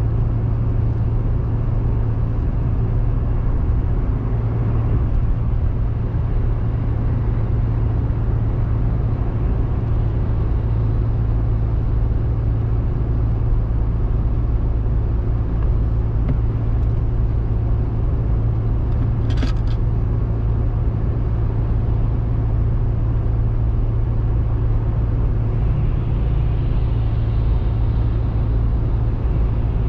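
Road noise inside a moving car at highway speed: a steady low drone of tyres and engine. A brief sharp tick comes about twenty seconds in, and a hiss swells slightly near the end.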